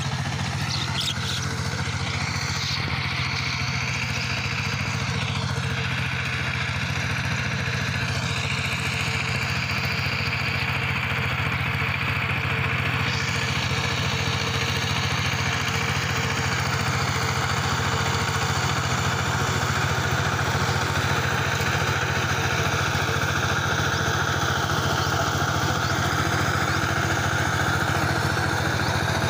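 Two-wheel power tiller's single-cylinder diesel engine running steadily under load as it drives a rotary tiller through the soil, growing slightly louder as the machine approaches.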